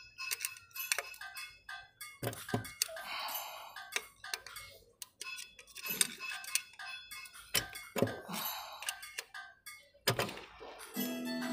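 Background music of struck, bell-like notes over a clicking percussive beat; a held low chord comes in near the end.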